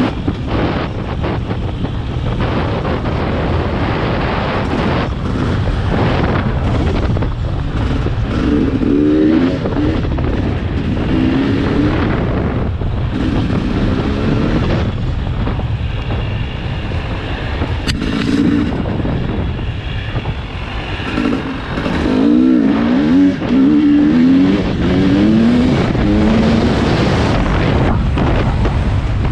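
A small engine revving up and down as the throttle is worked over rough ground, under heavy wind noise on the microphone.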